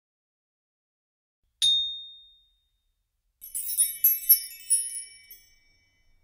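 A single bright ding about one and a half seconds in that rings and fades out, then about two seconds of high, sparkling chime tinkles: sound effects for animated on-screen graphics.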